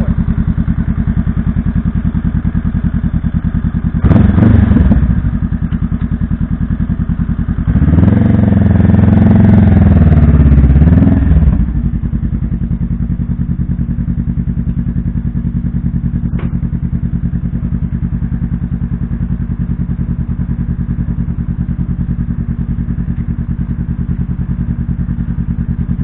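2017 Honda Rebel 500's parallel-twin engine through an aftermarket K-Speed exhaust, idling with a steady deep beat. A short blip of the throttle comes about four seconds in, then a longer rev of about four seconds, before it settles back to idle.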